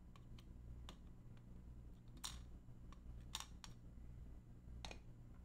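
Near silence with a scatter of faint, small, sharp clicks of steel tweezers and tools touching a watch movement as its wheels are handled, over a low steady hum.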